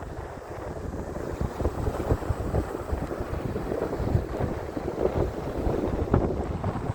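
Wind buffeting the microphone in uneven gusts, a low rumbling rush that rises and falls.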